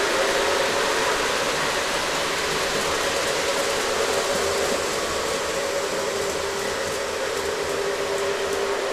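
Model trains running on the layout: a steady rolling hiss of metal wheels on track with a steady motor hum.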